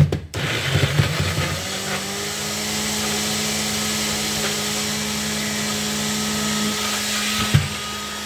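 Noisy electric kitchen blender running continuously, grinding raw chillies, garlic, shallots, galangal, turmeric, lemongrass and ginger into a spice paste. Uneven at first while it chops the chunks, then settling about two seconds in to a steady hum as the paste smooths out, with a brief knock near the end.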